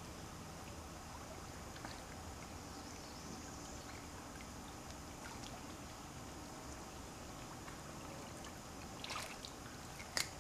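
Faint water sounds from a river otter swimming and diving in a pond: small splashes and drips over a steady low hiss. Near the end comes a brief splash, then a single sharp knock.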